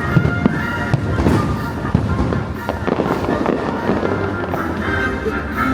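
A fireworks display going off, with many bangs in quick succession over the show's music soundtrack.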